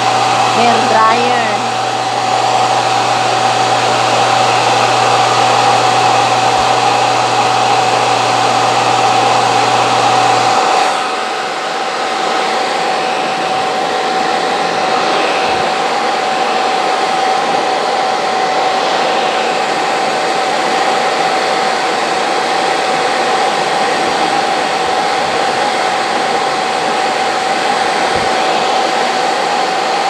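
Handheld hair dryer running steadily, a constant airy rush with a steady whine. About eleven seconds in, a low hum drops out and the level dips for a moment before the dryer runs on.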